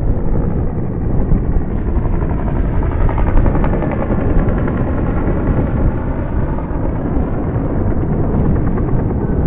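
Jet engines of a four-engine air tanker running overhead as it flies past: a loud, steady rumble with wind rumbling on the microphone.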